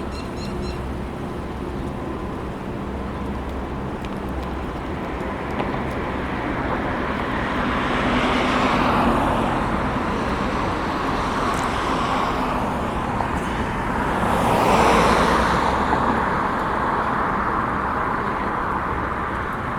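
Road traffic with a steady hum, and two cars passing by, about nine and fifteen seconds in, each swelling up and fading away.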